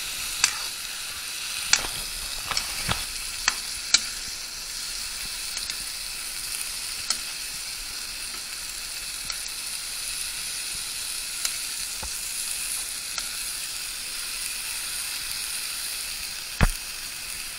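Vegetables sizzling and frying in an aluminium wok as they are stirred, a steady hiss broken by a few sharp clinks of the metal spatula against the pan, the loudest near the end.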